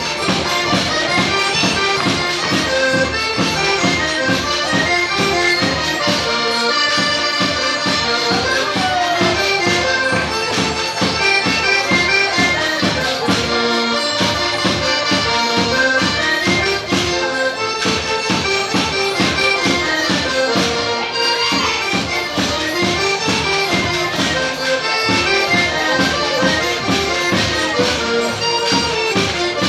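Portuguese folk dance music: an accordion playing a lively tune over a steady beat.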